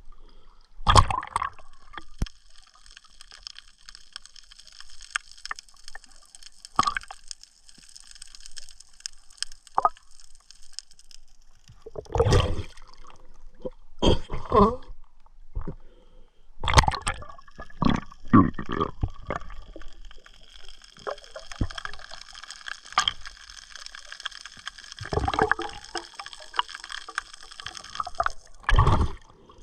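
Water gurgling and sloshing close to the microphone, broken by irregular loud splashes. A steady high hiss runs through the first ten seconds or so and again through most of the second half.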